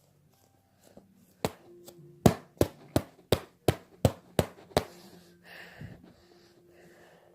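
A foam squishy toy being squashed with a quick run of about ten sharp knocks, roughly three a second, starting about a second and a half in.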